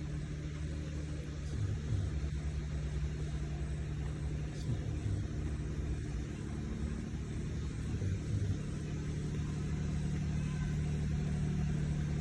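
A running engine: a steady low hum with rumble beneath it.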